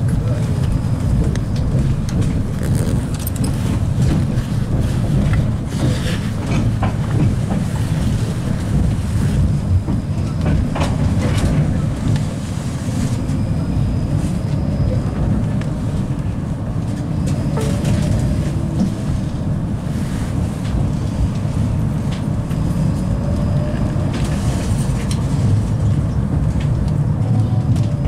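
A 71-931M Vityaz-M low-floor tram running along the line, heard from on board: a steady low rumble of wheels on the rails, with a few clicks over the track and faint whining tones now and then.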